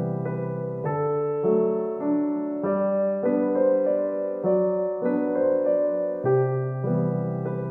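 Background piano music, a gentle run of notes and chords changing about every half second.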